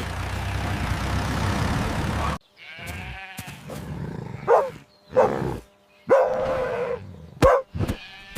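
About two seconds of a steady rushing noise, then sheep bleating several times, with one longer held bleat about six seconds in.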